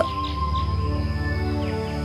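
Soft background music of sustained, steady tones.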